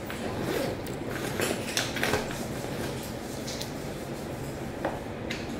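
Scattered light clicks and knocks of things being handled, over a steady low hum.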